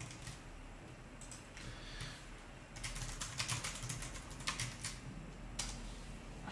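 Typing on a computer keyboard. A few scattered keystrokes come first, then a quick run of keystrokes about three seconds in that lasts around two seconds, then a single keystroke near the end.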